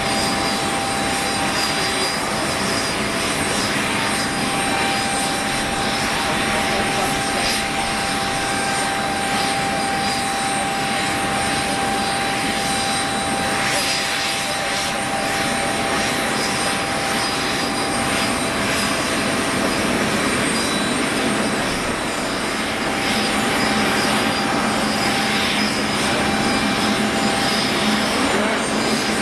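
Boeing 777-300ER's GE90 turbofans whining steadily at taxi power over a constant jet rush, with several fixed high whine tones.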